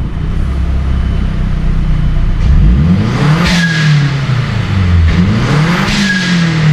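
A gen-1 Mazdaspeed3's 2.3-litre turbocharged four-cylinder idling, then revved twice, each rev climbing and falling back in about two seconds, heard from inside the cabin. The revs test for the misfire that the newly fitted, correctly gapped spark plugs were meant to cure, and the engine runs through them cleanly: it sounds good.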